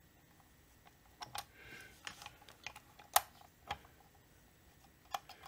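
Scattered sharp clicks and taps of a metal screw-type oil-seal puller being handled and fitted against a chainsaw crankcase, the loudest a little past halfway, with a brief high-pitched squeak near two seconds in.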